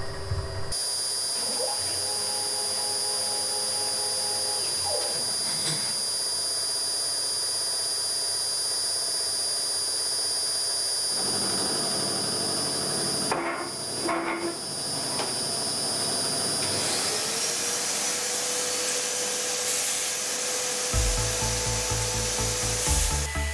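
Wabeco F1200 milling machine running, a steady high whine. About two-thirds of the way through a tone rises and then holds, as the spindle comes up to speed.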